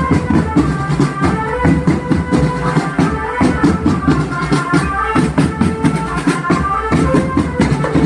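Marching band music: fast, dense drum beats with a melody of short stepped notes played over them.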